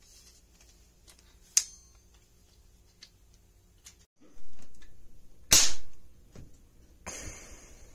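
Toy long-gun cap gun: a sharp crack about one and a half seconds in, then a louder cap bang a little over five seconds in, with a hissy burst of noise near the end.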